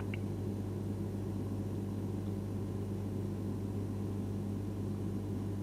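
Steady low electrical hum with a faint hiss, the background noise of the recording microphone, and a single mouse click right at the start.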